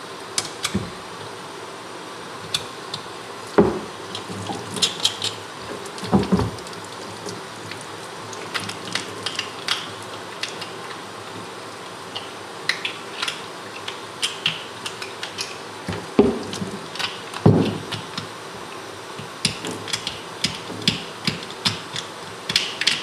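Tap water running steadily into a utility sink while a knife scrapes and picks gristle off a boiled bear skull, making many short sharp scraping clicks. A few louder knocks come about 3.5, 6 and 17.5 seconds in.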